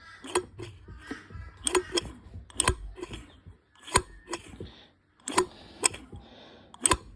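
The throttle of a 2002 Yamaha YZ250F is worked by hand and snapped shut, giving a sharp click about once a second, seven times, as the carburettor's throttle jet (accelerator pump) is checked for squirting fuel. The engine is not running.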